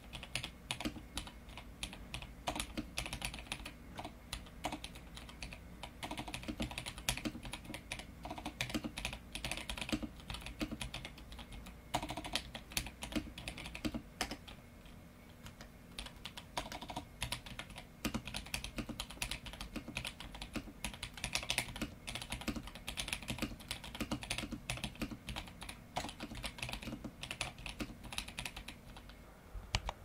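Typing on a Womier K87 mechanical keyboard fitted with lubed Gateron Brown tactile switches and PBT cherry-profile keycaps: a continuous run of keystroke clacks, easing off briefly about halfway through.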